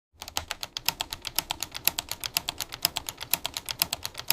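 Rapid, even clicking, about ten sharp clicks a second, starting suddenly after a moment of silence.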